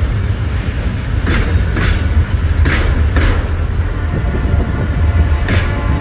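Freight train wagons rolling past with a steady low rumble. The wheels click over rail joints in pairs, three pairs, the two clicks of each pair about half a second apart.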